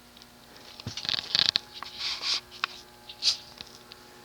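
Steady low electrical hum of a 1981 Universal (Shi Chen) ceiling fan's motor, starting on its lowest speed in reverse; the hum changes pitch about a second and a half in. Several short scratchy rustles of handling the speed control are the loudest sounds.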